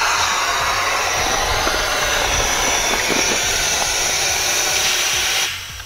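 Compressed air hissing steadily out of a diver's scuba set, cutting off abruptly near the end.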